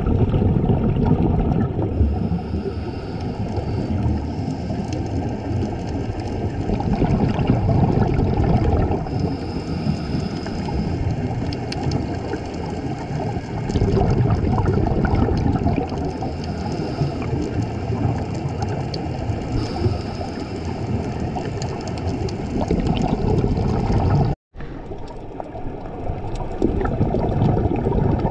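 Scuba diver's regulator breathing, heard underwater through a camera housing: a hiss on each inhalation, about three times, and bubbling exhalations over a dense low underwater rumble. The sound cuts out briefly about 24 seconds in.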